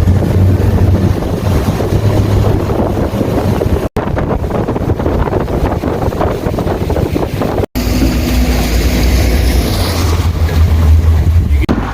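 Heavy wind buffeting the microphone: a loud, steady rumble and rush. It breaks off for an instant twice, about four and eight seconds in.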